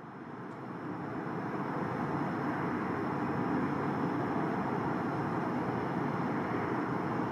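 Steady rushing din of distant city traffic, fading in over the first two seconds and then holding even.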